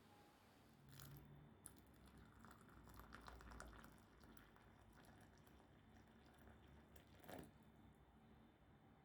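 Near silence with a few faint clicks and light handling noises.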